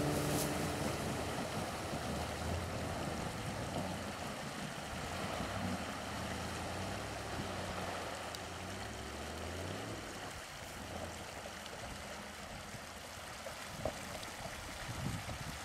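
SUV fording a shallow creek: water rushing and splashing around its wheels, with the engine running low beneath it and climbing in pitch about two-thirds of the way through.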